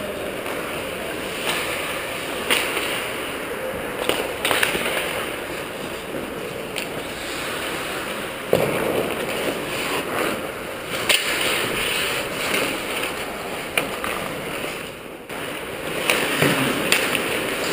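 Ice hockey play in an indoor ice arena: skates scraping and carving the ice, with sharp clacks of sticks and puck now and then.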